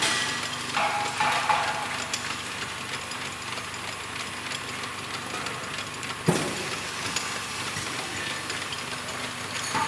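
LPG bottling plant machinery running: a steady hiss of escaping gas or air, with a sharp metallic clank about six seconds in and a few lighter knocks.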